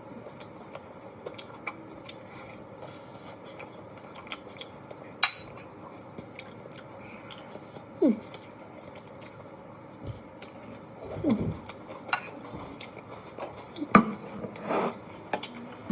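Cutlery clinking and scraping on a plate while eating, with scattered sharp clicks, the loudest about five, twelve and fourteen seconds in.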